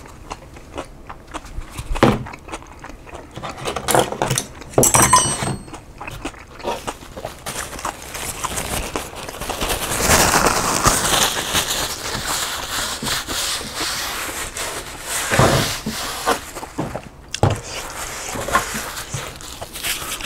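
A paper napkin rustling and crinkling for several seconds as it wipes the face, starting a little before halfway through, with scattered clicks and scrapes of tableware around it.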